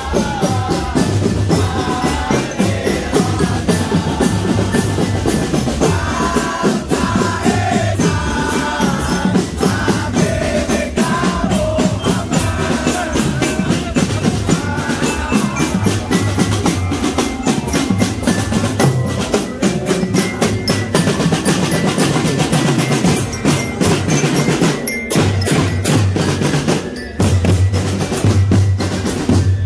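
Drum corps playing: rapid snare-drum strokes over a steady bass-drum beat, with a pitched melody carried over the drums through the first half, and two brief breaks in the drumming near the end.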